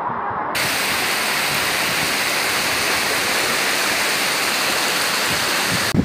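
Rushing water of a waterfall, a steady even noise that starts abruptly about half a second in.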